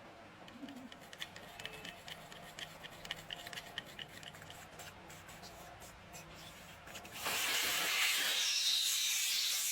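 Light clicking and scraping of hand work, then about seven seconds in a loud, steady hiss of spraying starts, like a spray gun or compressed air.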